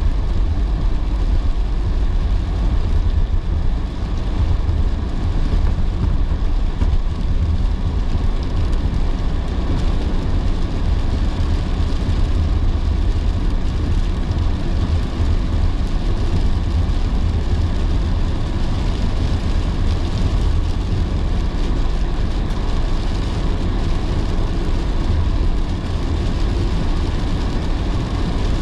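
Steady road and engine noise heard inside a moving car's cabin, a deep low rumble with hiss from rain on the car.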